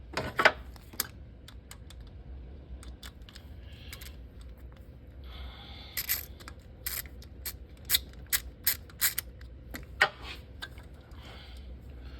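Sharp, irregular clicks and taps of hand tools and small metal parts as a fastener is unscrewed in the engine bay. There are a couple of clicks near the start and a denser run of them from about six to nine and a half seconds in.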